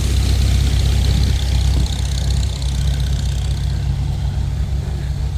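Ford 8000 grain truck's engine droning steadily under way, heard from inside the cab. A rushing road and wind noise rides over it and eases off about two seconds in.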